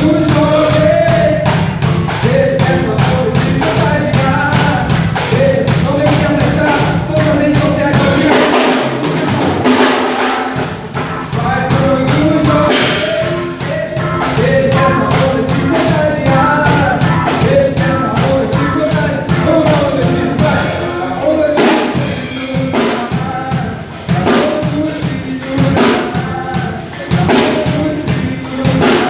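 A band playing a song: a drum kit keeping a steady beat under bass and a sung melody. The bass and low end drop out briefly about nine seconds in, then come back.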